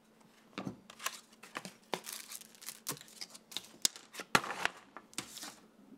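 Cardboard box and its cardboard insert being handled and rustled, with scattered light clicks and taps as the filter and packaging are lifted out; one sharper click a little past four seconds in.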